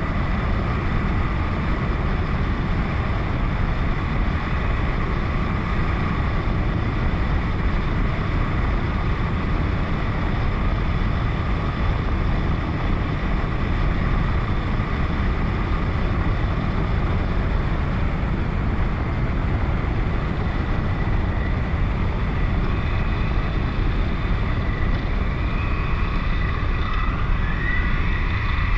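KTM 1090 Adventure motorcycle's V-twin engine running steadily on the move, under a thick, even rushing noise. Near the end the engine's pitch rises briefly.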